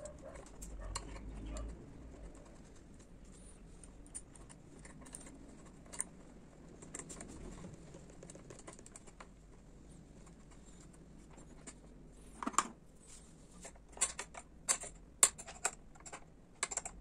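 Faint handling sounds and small metal clicks of a wrench and bolts as a new seat lock is bolted onto a motorcycle's rear frame, with a run of sharper clicks and taps near the end as the bolts are tightened.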